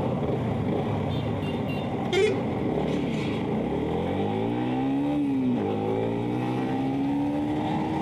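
Yamaha MT-15's 155 cc single-cylinder engine accelerating: the revs climb from about three and a half seconds in, drop sharply with an upshift around five and a half seconds, then climb again more slowly.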